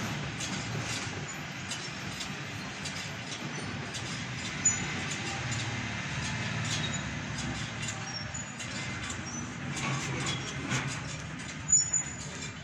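Marker pen scratching and squeaking on a whiteboard in short strokes as words are written, over a steady background rumble, with a sharper tap near the end.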